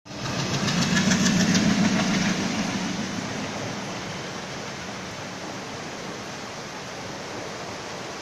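A diesel locomotive passes hauling passenger coaches. Its engine is loudest in the first couple of seconds, with a few sharp clicks of wheels over rail joints. Then a steady rumble and hiss as the coaches roll by.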